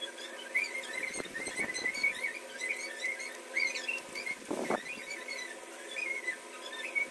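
A metal spoon scraping avocado flesh out of its skin, in a few rough scrapes; the strongest comes about four and a half seconds in. Rapid, high, wavering squeaks repeat throughout.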